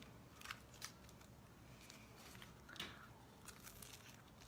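Near silence, with a few faint clicks and soft mouth sounds of someone eating, about three small clicks in all.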